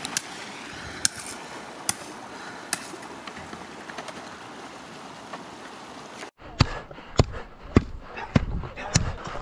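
A steady hiss with a faint click about once a second, then, after about six seconds, a shovel digging into dry dirt and gravel: sharp scraping strikes roughly twice a second.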